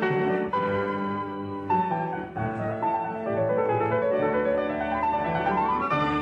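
Piano music in classical style: struck chords, then a line of notes climbing upward near the end.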